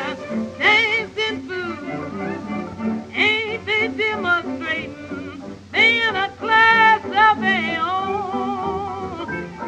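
Recorded music: a melody line with wide, wavering vibrato over instrumental accompaniment.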